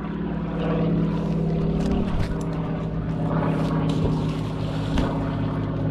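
An engine running steadily at one unchanging pitch, with a few faint knocks over it.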